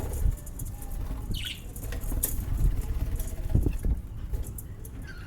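Rustling and low rumbling close to the microphone, with a lovebird giving one short, falling chirp about a second and a half in.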